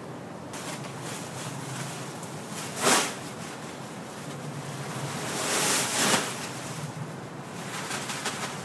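Large plastic bag of leaves rustling and crinkling as it is tipped up and shaken out onto a leaf pile. There is a sharp rustle about three seconds in and a longer, swelling stretch of rustling around six seconds.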